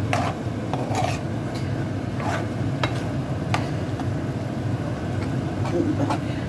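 A metal spoon stirring mixed vegetables in a frying pan, scraping and clinking irregularly against the pan, over a steady low hum.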